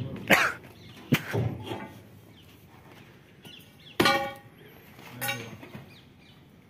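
Steel knocking on the metal frame of a combine harvester under repair: a few sharp knocks, then a hard metallic clang about four seconds in that rings briefly, and a lighter ringing clank a second later.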